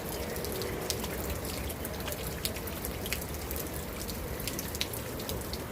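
Steady rain falling, with many single drops ticking sharply at irregular moments.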